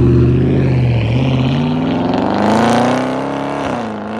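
Dodge Charger's swapped 6.4-litre 392 HEMI V8, fitted with a Mopar cold air intake, accelerating hard and loud. Its pitch climbs steadily for a couple of seconds, drops suddenly as it shifts about three and a half seconds in, then holds.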